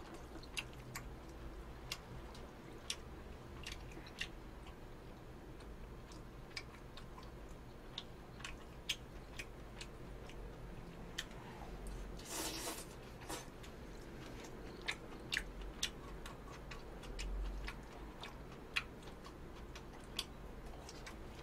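Faint, irregular clicks of a plastic fork against a takeout pasta container, with quiet chewing. A brief, louder rush of noise comes about twelve seconds in.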